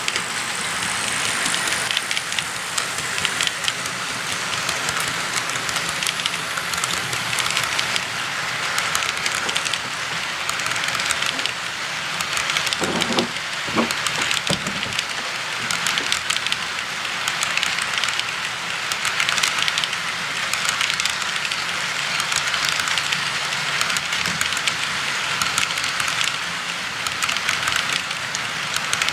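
Model diesel locomotive, a ScaleTrains SD40-2, running along model railroad track: a steady rolling rattle with many small clicks from wheels on the rails.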